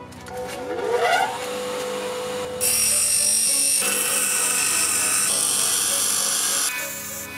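Bench grinder switched on, its motor whining up to speed in about the first second and then running steadily. From about two and a half seconds in, a small steel knife blade is pressed against the spinning wheel, giving a loud, hissing grind that eases off near the end.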